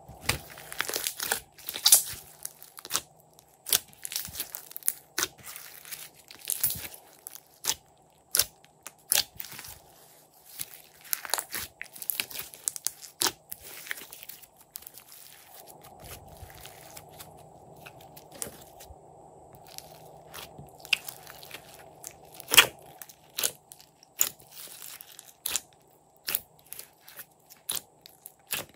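Pink slime being stretched and squeezed by hand, giving irregular sticky crackles and sharp pops as trapped air pockets burst, over a faint steady hum.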